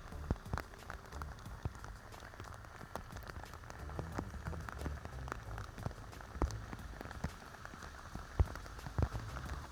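Rain falling steadily, with many separate close drop hits landing at irregular moments.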